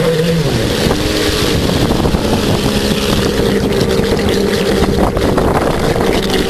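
10S electric RC offshore race boat running on the water, heard from on board: a motor whine that drops in pitch about a second in and then holds steady, over loud water spray and wind rush.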